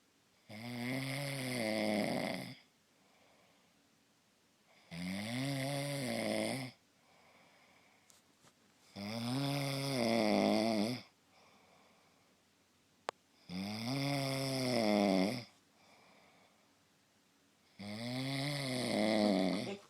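A person snoring in a steady rhythm: five long, rattling snores of about two seconds each, one roughly every four seconds, with quiet breathing gaps between them.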